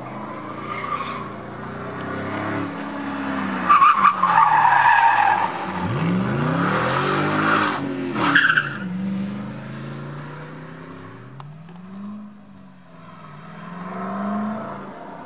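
Ford Mustang 4.6 V8 with its exhaust valves open, revving hard through a hairpin with the rear tyres spinning and squealing, then accelerating away, its pitch climbing through the gears and fading.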